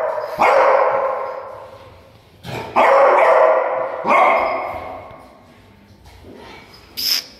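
A beagle howling: two long drawn-out howls, the second starting about two and a half seconds in and louder, each fading away slowly.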